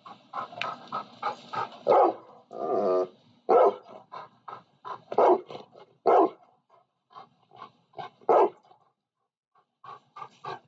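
A dog barking over and over, short barks at an uneven pace with a brief pause before a last few.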